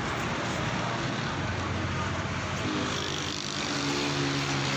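Road traffic noise: a steady rush of passing vehicles, joined about three seconds in by a steady engine hum.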